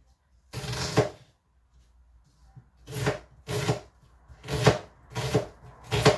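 Knife slicing through onions onto a chopping board: one cut about half a second in, then five more at uneven intervals from about three seconds on.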